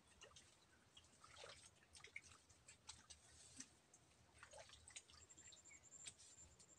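Near silence: faint scattered wet clicks and small drips and squelches of hands groping in shallow muddy water, with a faint thin high steady tone coming in about five seconds in.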